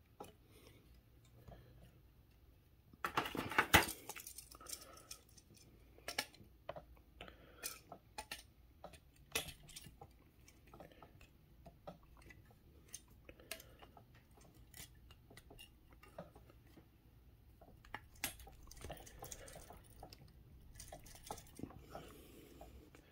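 Plastic snap-fit airliner model being handled and pressed together: scattered light clicks and taps as the wing assembly is worked onto the fuselage, a tight fit. A louder clatter lasting about a second comes about three seconds in.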